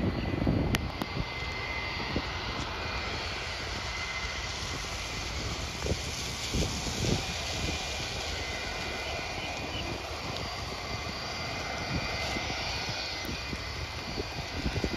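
Distant Boeing 757-200 jet engines running during the landing roll, a steady rumble mixed with the hiss of pouring rain. Short gusts of wind buffet the microphone near the start and again about halfway through.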